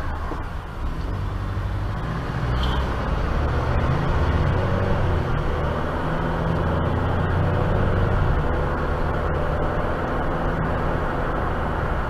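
Steady engine and road noise heard from inside a moving car, a low rumble with a constant hum.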